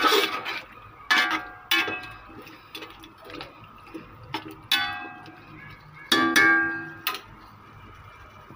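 Metal spoon stirring potatoes in masala in an aluminium cooking pot, knocking against the pot so that it rings: about five loud clangs at uneven intervals, each fading within half a second, with quieter scraping between.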